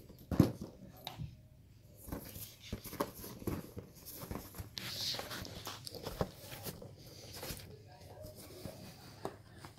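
Latex balloons being grabbed, bumped and rubbed by a capuchin monkey: irregular soft thumps and rubbing, with a sharp knock less than half a second in.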